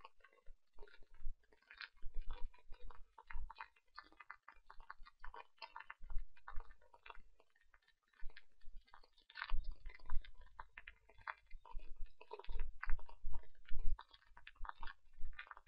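Irregular clicks and taps of a computer keyboard and mouse as a formula is typed into an equation editor, with a few dull low thuds among them.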